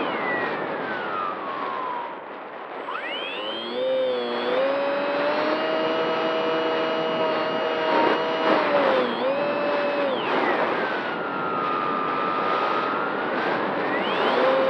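Radio-controlled model plane's motor and propeller, heard from the onboard camera over a rush of wind noise. The pitch falls away at first, climbs again about three seconds in, holds steady for a few seconds, then dips and rises several more times.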